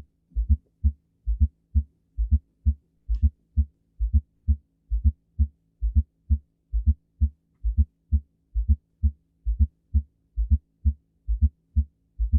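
Recorded heart sounds with a fourth heart sound (S4, atrial gallop): a repeating cycle of three dull low thumps a little under once a second, the extra sound falling just before the first heart sound, over a faint steady hum. An abnormal finding, usually due to diastolic heart failure.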